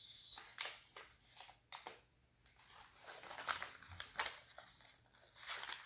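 Sheet of origami paper rustling and crackling as it is folded and pressed along its creases by hand, in a series of short, irregular rustles.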